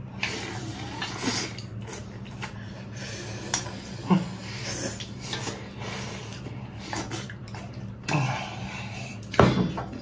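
A man eating: chewing and mouth noises in bouts, with light clicks of chopsticks against a porcelain bowl.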